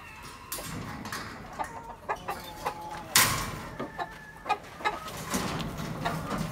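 Chickens clucking in short, scattered calls, with small knocks and one sudden loud noise about three seconds in.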